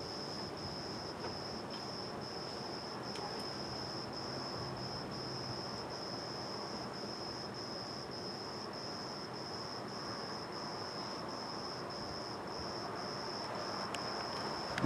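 A cricket singing a steady high trill, broken into regular pulses about three times a second, over a steady background hiss that swells slightly near the end.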